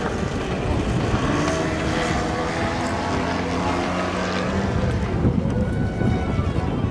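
A model airplane's engine running with a steady pitch, clearest from about one to four and a half seconds in, over a constant rushing noise.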